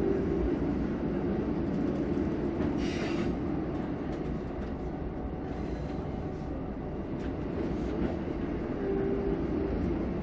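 JR Hokkaido KiHa 54 diesel railcar running along the line, heard from inside its cab: a steady low rumble of engine and wheels on rail, with a brief hiss about three seconds in.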